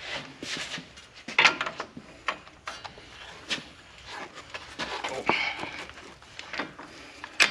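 Metal hand tools clinking: a socket, extension and wobble extension being handled and fitted onto the front hub's bolts, a series of separate irregular clicks and knocks with one short metallic ring about five seconds in.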